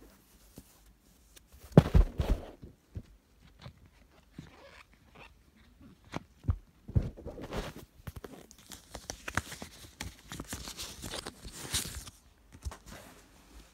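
Clear plastic CD sleeve rustling and crinkling in the hands as the CD-R is slid out, with irregular clicks and knocks from handling close to the microphone, the loudest a knock about two seconds in.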